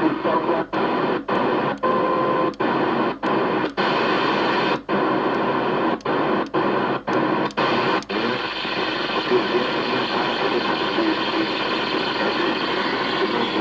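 CB radio receiver hissing with 11-metre band static while skip is on, broken by short dropouts about twice a second for the first eight seconds, then a steady hiss.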